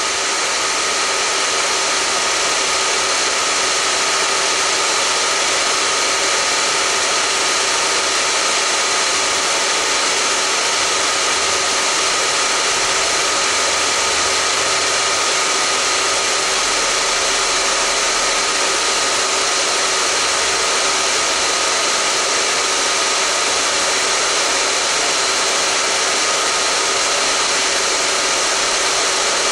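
Hair dryer running steadily, a constant rushing blow with a faint steady whine in it, left on as white noise to lull a baby to sleep.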